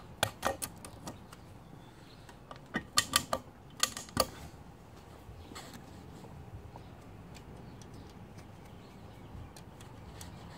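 Sharp metallic clicks and clinks of valve-spring parts and tools being handled on a slant-six cylinder head during valve-spring reassembly. They come in a cluster over the first four seconds or so, then only a faint low background.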